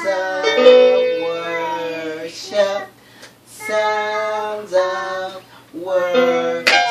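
A young girl singing a worship song in several short phrases, over held piano or keyboard chords.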